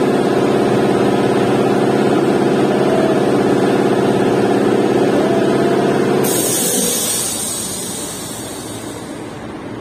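An engine running steadily, stopping abruptly about six seconds in; a high hiss starts at that moment and lasts about three seconds before fading to a quieter background noise.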